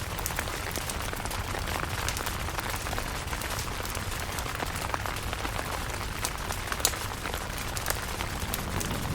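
Steady rain falling on a camping tent, a continuous hiss with many separate sharp drop taps scattered through it.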